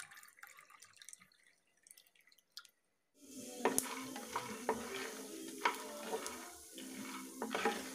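Peanuts being stirred with a wooden spatula in a non-stick frying pan, with repeated sharp clicks and scrapes over a steady hiss, starting about three seconds in. Before that, water is poured faintly into a glass and ends in a brief hush.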